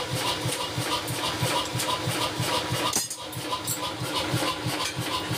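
Belt-driven mechanical forging power hammer running, its ram cycling in a steady rhythm of about four to five strokes a second with sharp metallic clicks.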